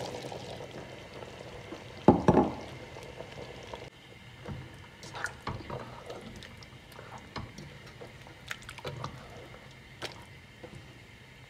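Boiled chickpeas poured into a pot of simmering chicken curry, landing with a loud wet splash about two seconds in. A spoon then stirs the pot, with scattered light knocks against the steel over the curry's bubbling.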